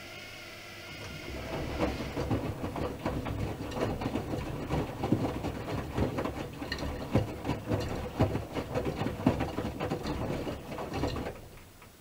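Miele Supertronic W5000 front-loading washing machine turning its drum in the wash rhythm, the wet laundry tumbling with a dense, irregular clatter of knocks. The tumbling starts about a second in over a low steady hum and stops suddenly about a second before the end.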